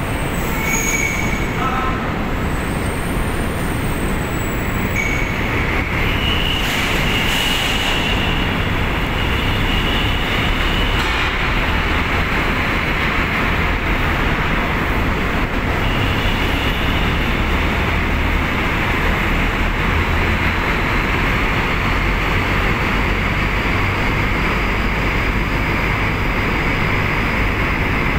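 Diesel engine of a heavy tractor-trailer running as the truck creeps across a ro-ro ship's steel car deck: a steady, loud rumble with a faint high whine that comes and goes.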